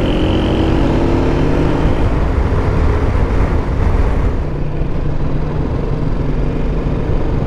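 BMW G310GS motorcycle's single-cylinder engine running steadily while riding through city traffic, mixed with road noise.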